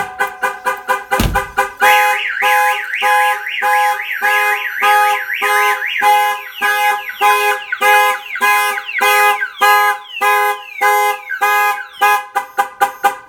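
Viper 5706V car alarm going off on a Chevy Silverado/GMC Sierra pickup: the siren sounds in pulses of about two a second, each a fast up-and-down warbling tone, with the truck's horn honking in time with it. About a second in there is a single heavy thump, just before the alarm starts.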